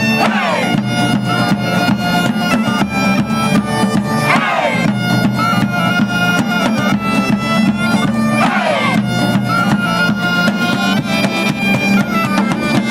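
Bagpipe music with a steady low drone under the melody and a regular drum beat, and a falling swoop about every four seconds.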